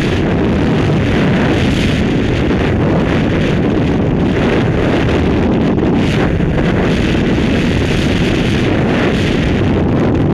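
Freefall wind rushing over a skydiver's head-mounted camera microphone: a loud, steady rush of air, deepest in the low end, with slight surges.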